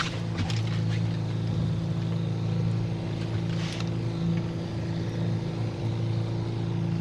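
A boat's motor running with a steady low drone, with brief splashes from a hooked king salmon thrashing at the surface near the start and again about three and a half seconds in.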